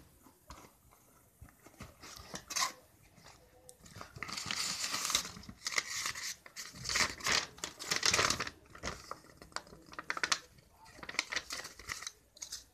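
Paper and plastic packaging being torn off a cardboard parcel and crumpled by hand, in irregular rustling bursts, thickest about four to eight seconds in.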